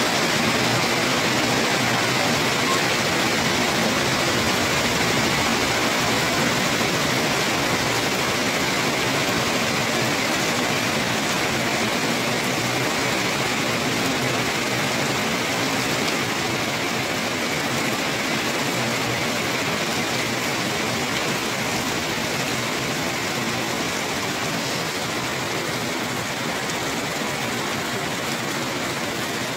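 Heavy rain falling steadily onto wet paving and trees, a dense even hiss that eases slightly toward the end.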